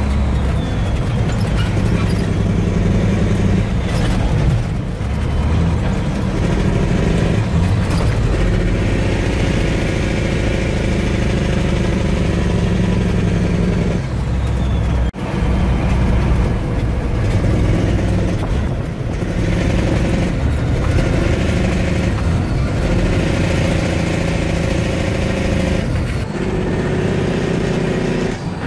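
Detroit Diesel Series 60 12.7-litre engine of a dump truck running under load on the road, heard from the cab. Its pitch drops and climbs again several times as the 18-speed Eaton Fuller gearbox is shifted, with a brief sharp break about halfway through.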